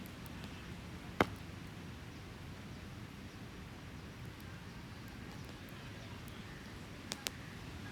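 Beach campfire crackling: one sharp pop about a second in and two quick pops near the end, over a steady low rumble of surf.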